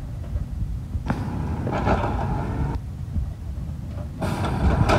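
Natural-gas automated side-loader garbage truck running with a low rumble while its arm lifts a green yard-waste cart and tips it into the hopper. A rattling rush of noise starts about a second in as the cart goes up, and another comes near the end as the cart is dumped.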